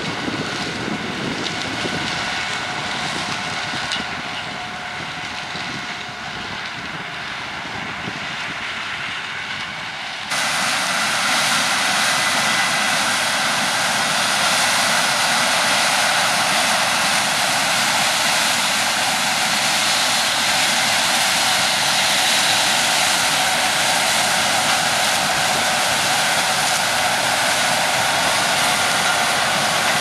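Claas Lexion 8700 combine harvester running steadily while cutting grain maize and unloading through its spout, with a tractor engine alongside: a steady machinery drone with a high whine. It gets suddenly louder about ten seconds in.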